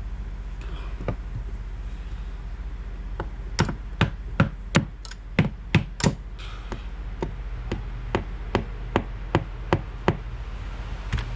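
A run of about eighteen sharp taps, two to three a second, louder at first and lighter in the second half: a hammer tapping wooden toothpicks into stripped screw holes in a door frame to fill them so the screws will tighten.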